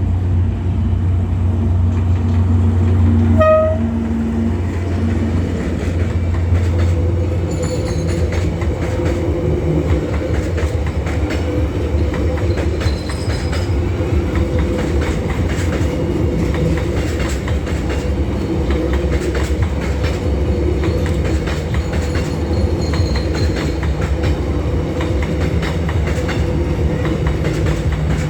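A Vietnam Railways passenger train rolls steadily past with a continuous low rumble and hum, its wheels clacking over the rail joints in a run of sharp clicks. A brief horn note sounds about three and a half seconds in.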